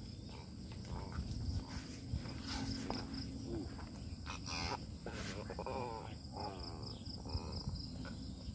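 Outdoor ambience: insects trilling steadily in a high pulsing tone over a low rumble, with indistinct voices of people in the background from about the middle onward.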